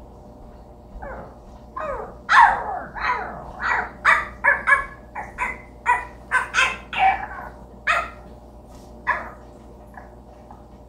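A quick run of about fifteen short, sharp barks, coming fastest in the middle and thinning out toward the end.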